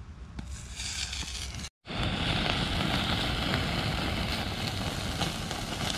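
Sausages sizzling over hot charcoal on a stainless steel grill: a steady hiss with small crackles and spits over a low rumble, starting abruptly about two seconds in.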